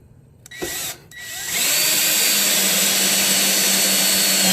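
Power drill running: a short burst about half a second in, then it spins up and runs steadily with a high whine for about three seconds before stopping.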